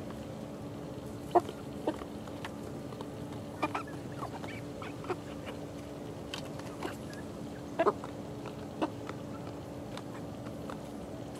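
Eleven-week-old chickens clucking softly while pecking, with irregular sharp taps scattered through, over a steady low hum.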